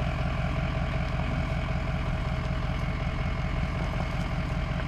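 Pickup truck engine running steadily, holding an even pitch.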